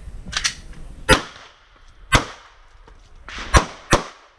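A string of about five rifle shots from an Arsenal SL-104 AK-pattern rifle, fired at uneven intervals with the last two in quick succession, each crack trailing off in a short echo.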